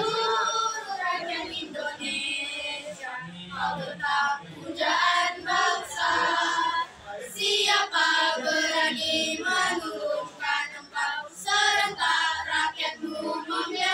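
A choir of teenage schoolgirls singing together, phrase after phrase, with short pauses for breath between phrases.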